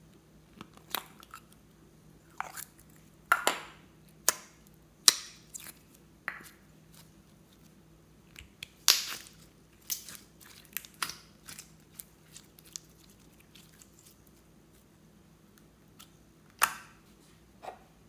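Hard plastic capsule egg being handled and pried open, giving irregular sharp plastic clicks, snaps and crackles, loudest about three to five seconds in and again around nine seconds.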